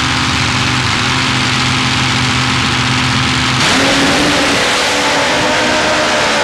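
Two nitro-burning Top Fuel drag motorcycles running steadily at the start line. About three and a half seconds in, the sound turns suddenly louder as they launch and race down the strip, with engine pitch gliding.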